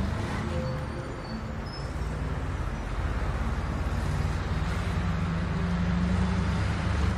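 Steady road traffic noise with a low engine rumble.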